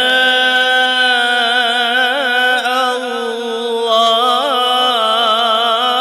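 Male qari reciting the Quran in melodic tajweed style, drawing out one long ornamented phrase whose pitch wavers and turns without a break for breath.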